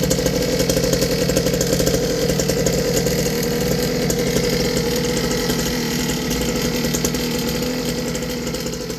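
50cc two-stroke engine of an X-Pro X1 mini dirt bike idling steadily, then dying away near the end.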